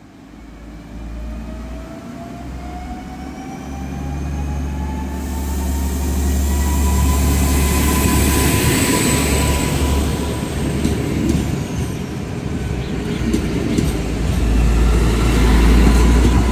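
PESA Elf 2 (EN63H) electric multiple unit approaching and running past along the platform, growing louder, with a low rumble of wheels on rail. Its motor whine rises in pitch over the first several seconds, then holds steady, with a few sharp clicks from the wheels in the later seconds.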